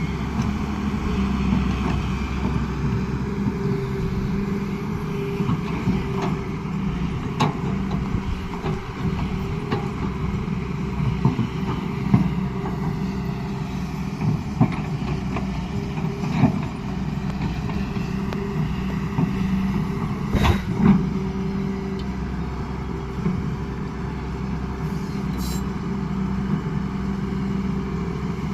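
Hyundai R210 Smart Plus excavator's diesel engine running steadily as it works mud, with a few short knocks now and then, the sharpest about twelve and twenty seconds in.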